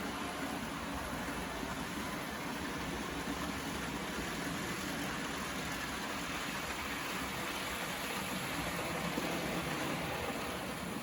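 Märklin model train running on its track, a steady whirring hum of the motor and wheels.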